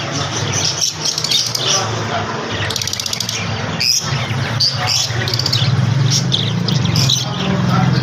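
A flock of caged lovebirds chirping and squawking: many short, shrill calls overlapping, over a steady low hum.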